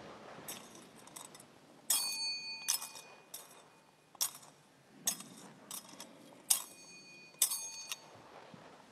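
A metal thurible (censer) being swung on its chains, clinking roughly once a second in a series of sharp metallic strikes. The strongest clinks leave a brief bell-like ring. This is the incensing of the Gospel book before the reading.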